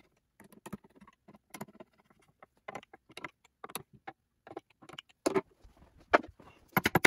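Scattered small clicks and ticks of a screwdriver driving the mounting screws into a Kreg router insert plate, with a few sharper knocks about five and six seconds in and a quick run of clicks near the end.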